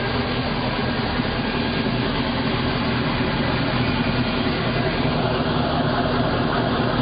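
Volvo Penta 8.1 GI V8 sterndrive engine idling steadily, with an even low hum that does not rise or fall.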